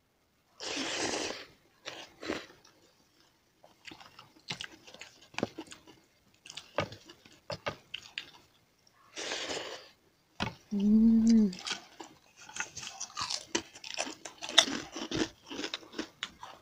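Chewing and crunching of a rice meal eaten by hand, with many wet mouth clicks and smacks. A short hummed 'mmm' comes about eleven seconds in.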